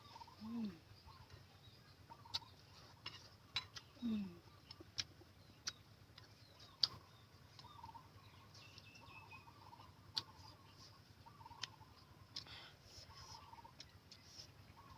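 Scattered sharp clicks of eating utensils against dishes, over faint clucking of chickens. There are two short low falling sounds, one near the start and one about four seconds in.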